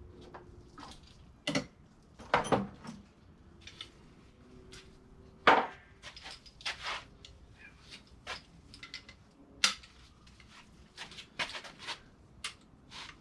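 Irregular metal clinks and clanks of hand tools and sockets on an engine's cylinder head bolts, with a louder knock about two and a half seconds in and the loudest about five and a half seconds in.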